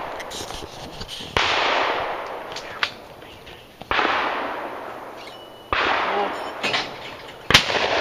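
Shotgun shots at clay targets: four sharp blasts a second or two apart, each trailing off in a long echo. The last, near the end, is the loudest.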